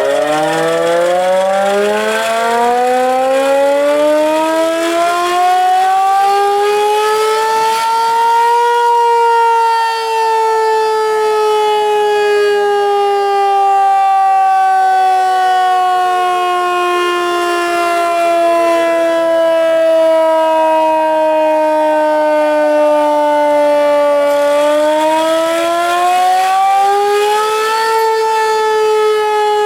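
Several outdoor tornado warning sirens wailing together, sounding a tornado warning. One winds up from a low pitch at the start while another winds down. Their pitches climb slowly, sink over many seconds, then climb again near the end.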